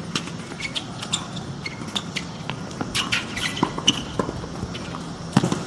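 Tennis rally on a hard court: sharp racket strikes on the ball, footsteps and brief shoe squeaks, with the loudest strike near the end.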